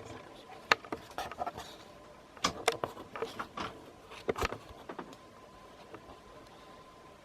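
A scatter of sharp clicks and light knocks, clustered in the first half, over a faint steady hum.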